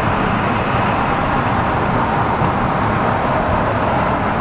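Car with a straight-piped true dual exhaust running steadily on the move, engine drone mixed with road noise.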